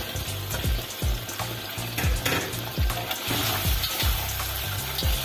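Sardines, bell peppers and onions in sauce sizzling in a wok while a metal spatula stirs them.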